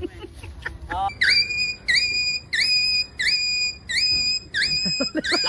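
A high whistle-like note repeated about seven times at an even pace, each one sliding sharply up and then holding for about half a second.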